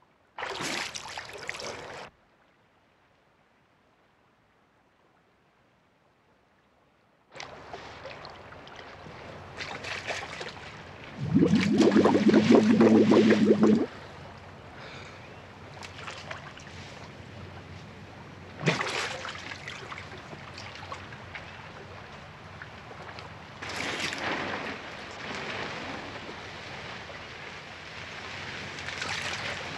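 A short burst of splashing water, then several seconds of near silence, then running water and splashing as a man thrashes at the river's surface with his hands. Partway through, a loud pitched sound lasts about two and a half seconds, and sharper splashes come later.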